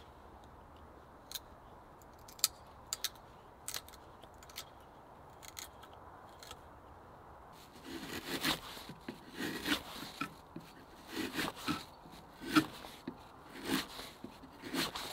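Wood being hand-carved with an edged carving tool: a few sharp clicks at first, then from about halfway a run of irregular scraping cuts, one or two a second.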